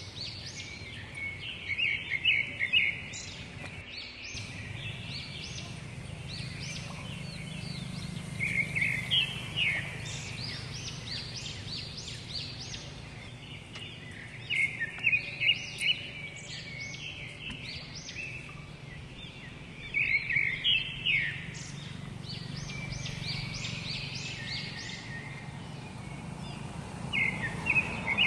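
Birds calling in bursts of rapid, high chirping notes, about five bursts several seconds apart, over a steady low background hum.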